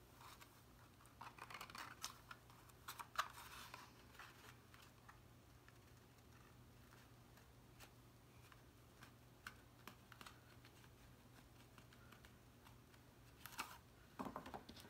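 Faint handling of cardstock pieces: light paper rustles and small taps and clicks, busiest in the first few seconds and again near the end.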